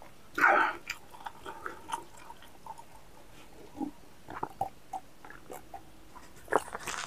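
Close mouth sounds of a man drinking from a mug: a short, louder sound about half a second in, then scattered soft gulps and small mouth clicks.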